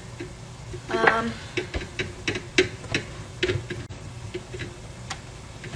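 Kitchen utensils knocking and clicking during food preparation: a run of short sharp knocks, roughly two a second, over a low steady hum.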